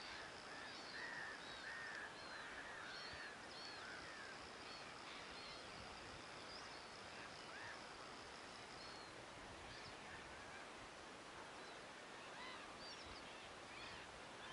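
Faint outdoor ambience with small birds chirping in short calls, busiest in the first few seconds and again near the end, over a steady hiss and a thin high whine that stops about two-thirds of the way through.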